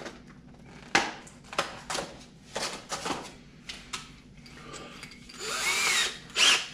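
Clicks and knocks of a forstner bit being changed in a drill's chuck, about every half second, then a short, louder noisy burst with a gliding whine near the end.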